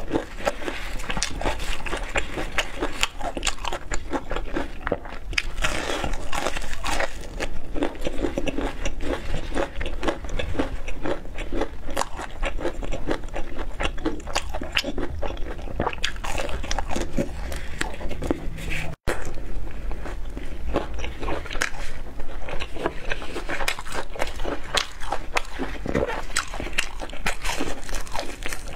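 Close-miked chewing and crunching of crumb-coated fried chicken, a dense, irregular run of crisp crackles from the breading. The sound cuts out for an instant about two-thirds of the way through.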